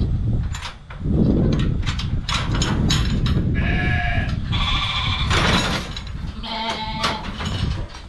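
Rattling and clanking of a metal sheep handling crate being worked, then Shetland sheep bleating three times.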